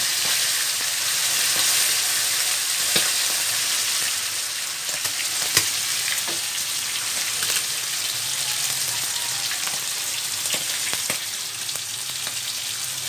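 Yellowfin tuna pieces frying in hot oil in a wok: a steady sizzle with scattered pops and crackles, one sharper pop about halfway through.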